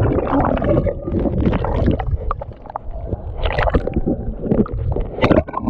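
Muffled underwater churn of breaking surf heard through a waterproof camera housing: a low rumble and gurgle with many scattered clicks and pops from bubbles.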